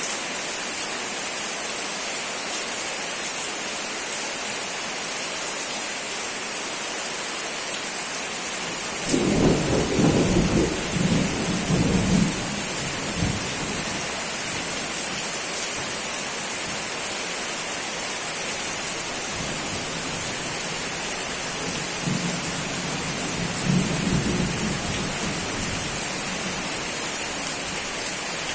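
Steady rain falling, with thunder rumbling twice: a loud roll about nine seconds in that lasts a few seconds, and a fainter one later.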